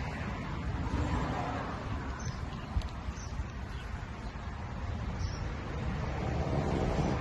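French bulldog snoring in its sleep, with noisy, rasping breaths that swell and fade slowly.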